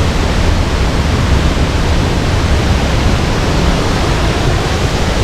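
Sgwd yr Eira waterfall, a steady, loud rush of falling water with a heavy low rumble and no break.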